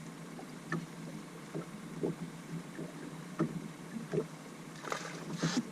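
Scattered knocks and taps of fishing gear and fish being handled in a boat, over a steady low hum. A short rushing hiss comes near the end.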